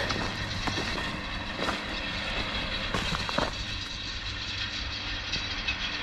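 Case 155 tractor's engine running steadily as it pulls a Cambridge roll, with faint irregular clicks.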